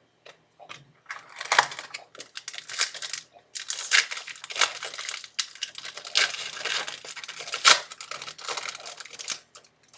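Foil wrapper of a football card pack crinkling as it is handled, in a run of short rustles.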